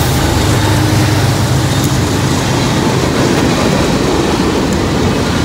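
Freight train passing close by: a CSX diesel locomotive's engine drones past, then tank cars roll by with steady wheel-on-rail rumble.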